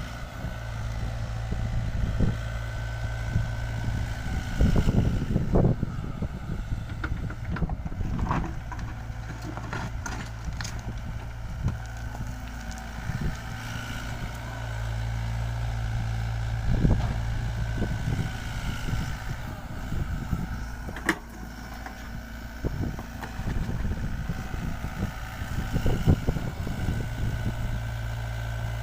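LiuGong 906F mini excavator's diesel engine running steadily while it works backfill soil, with scattered knocks and clanks from the machine.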